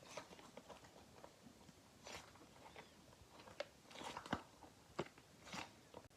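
Small fidget toys being handled: faint, irregular clicks, taps and soft rustles, with a few sharper clicks about four and five seconds in.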